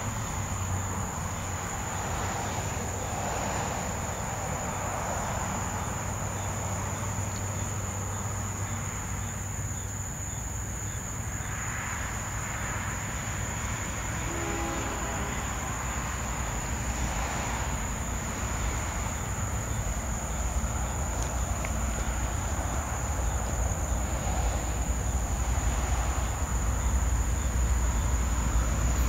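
Low, steady rumble of CSX diesel freight locomotives, growing louder toward the end as a train approaches, over a steady high-pitched insect chorus.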